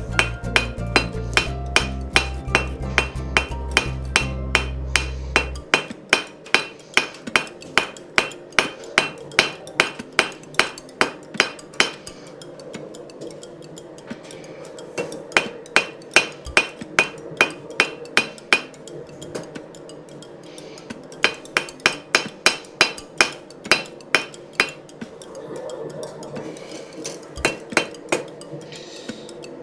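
Hand hammer striking round steel stock on an anvil: about two to three sharp blows a second, in runs with short pauses between them. Background music plays under the first six seconds or so.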